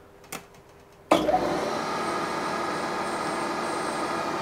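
A click, then about a second in the milling machine's spindle motor starts and runs steadily, spinning the drill chuck up to speed for drilling.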